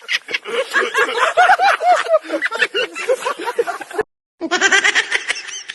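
A person's high-pitched laughter in quick, repeated giggles and snickers. It cuts out briefly about four seconds in, then starts again.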